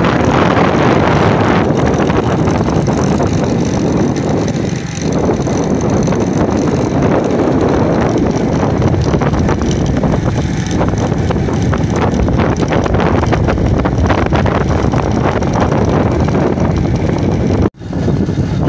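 Wind buffeting the microphone over the steady running of a motorcycle riding along a road. The sound breaks off for a moment near the end.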